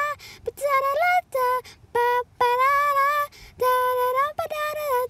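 A high female voice singing a wordless melody on "da" syllables: about eight held notes of shifting pitch, broken by short gaps.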